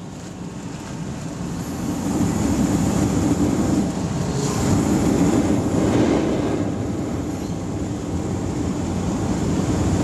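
Waste-oil burner firing with its air blower: a steady rushing noise that grows louder over the first few seconds as the air is turned up, then holds.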